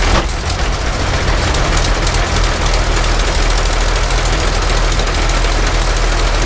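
Rolls-Royce Merlin XX V12 aero engine catching right at the start and settling into a steady, rapid-firing run with its propeller turning, on its first start after a rebuild.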